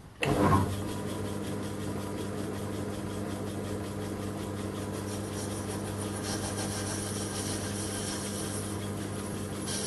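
Small bench metal lathe switched on: its motor starts with a brief surge and then runs steadily, spinning the spindle and ER collet chuck, with a steady hum.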